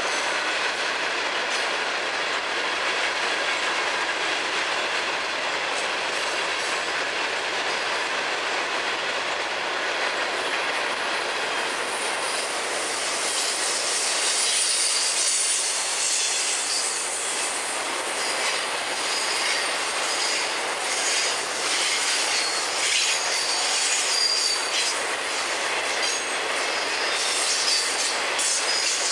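FEC freight train rolling past: steel wheels running on the rails, with a high-pitched wheel squeal and clacking over the rail joints. The clacks grow more frequent and sharper about twelve seconds in, as the hopper cars give way to intermodal container and trailer cars.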